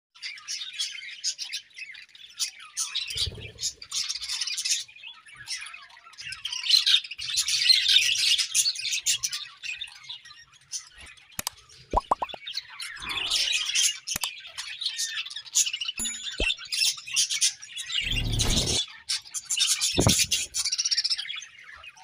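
A group of budgerigars chirping and warbling in fast, continuous high chatter. A few low thumps are mixed in, the loudest about three-quarters of the way through.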